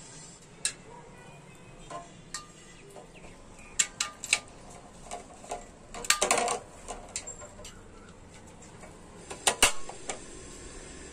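Scattered clicks and knocks of a TVS 50 moped's painted sheet-metal body panel, its bolts and its studs being handled and fitted against the steel frame. A longer rattle comes about six seconds in, and a quick run of clicks near the end.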